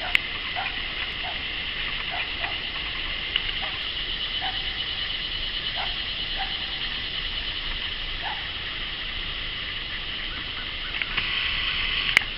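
Steady high-pitched drone of insects in roadside vegetation, with scattered short chirps, growing louder near the end. A sharp click just after the start and another near the end.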